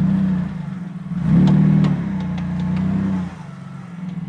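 Mitsubishi Pajero 2's 3.5-litre V6 engine revving under load while driving over sand bumps; the engine note rises about a second in, holds, and eases off near the end. A few sharp ticks are heard in the middle.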